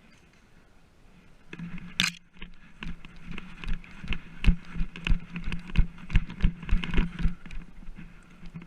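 Footsteps of an airsoft player on the move, regular thumps about two or three a second, with gear rattling and a sharp click about two seconds in.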